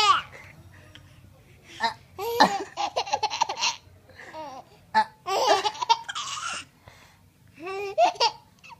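Baby laughing in four or so bursts, each a quick run of pulsing laughs, with short pauses between them.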